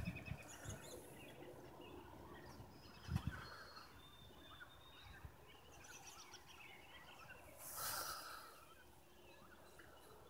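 Faint outdoor ambience with scattered short bird chirps. There is a soft knock about three seconds in and a brief rush of noise around eight seconds.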